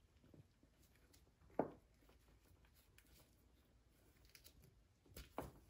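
Mostly near silence, broken by one sharp click about a second and a half in and a couple of faint ticks near the end: hand wire strippers working the insulation off a trolling motor power wire.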